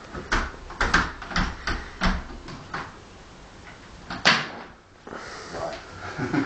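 A long stick tapping and knocking against a window frame and handle as it is poked at the window: a quick run of knocks over the first three seconds, then one sharper knock a little after four seconds.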